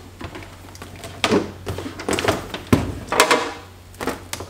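Handling noise on a wooden workbench: a series of knocks and clatters as a coiled air hose and a plasma cutter are set down and moved, with one heavier, deeper thump about halfway through.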